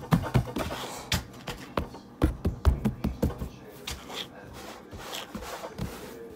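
Hands kneading and squeezing a ball of sand slime: irregular wet squelches and pops, thickest in the first three seconds and sparser after.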